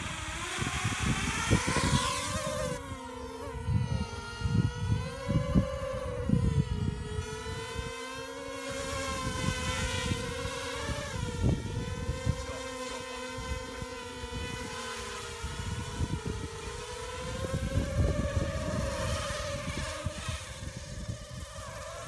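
Quadcopter's electric motors and propellers whining as it spins up from the ground and flies, the pitch rising over the first two seconds and then wavering up and down with the throttle. An irregular low rumble with sudden peaks runs underneath on the microphone.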